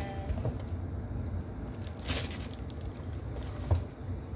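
Tissue paper and a paper gift bag rustling and crinkling as they are handled, with a louder crinkle about two seconds in and a few soft low knocks.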